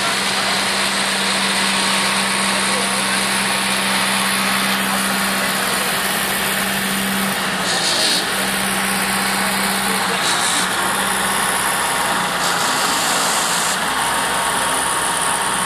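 Heavy-haul MAN truck's diesel engine running with a steady low hum as it slowly pulls a multi-axle modular trailer with an 800-tonne load, with a constant hiss over it.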